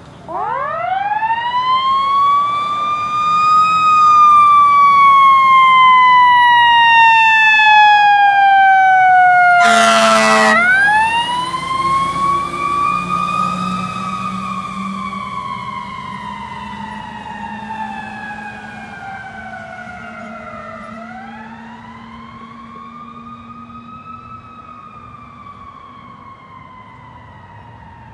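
Fire engine siren winding up three times, each time climbing to a peak and then slowly sliding down in pitch, with one short, loud horn blast about ten seconds in. The siren is loudest in the first ten seconds, then grows steadily fainter as the truck drives away.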